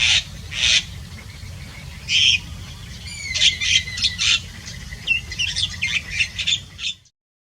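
Zitting cisticola calling: short, harsh, scratchy notes, three about three-quarters of a second apart and then another, followed from about 3 s by a quicker run of varied chirps over a thin steady whistle. A low steady rumble lies underneath, and the sound cuts off suddenly about 7 seconds in.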